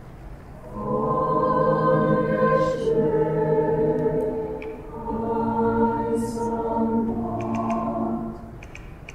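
High school choir singing a holiday carol, the students' separately recorded voices put together into one virtual choir. Two long held phrases, the first starting about a second in and the second around five seconds in, with a short breath between and a softer dip near the end.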